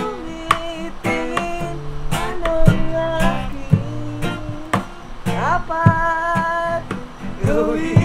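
Acoustic guitar strummed in an easy rhythm, with a man's voice singing along.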